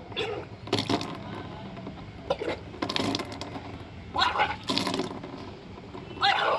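A person retching and vomiting up a large amount of drunk water in repeated bursts, each gag bringing a gush of splashing water. This is the water-expulsion stage of kunjal kriya, the yogic stomach wash.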